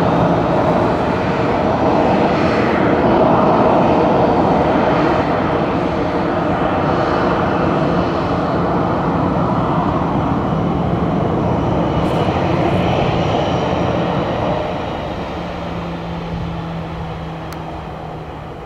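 Boeing 737-800's CFM56-7B jet engines running loud, a dense roar with a steady low hum, fading away over the last few seconds as the aircraft moves off.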